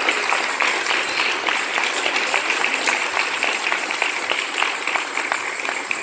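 Church congregation applauding: many hands clapping in a steady round of applause.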